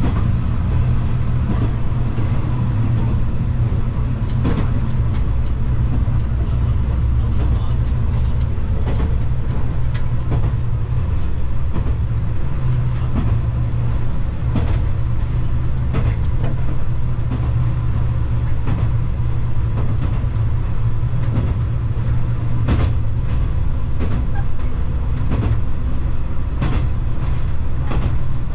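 KiHa 120 diesel railcar running along the line, heard from on board: a steady low diesel engine drone with a few sharp clicks and knocks scattered through it.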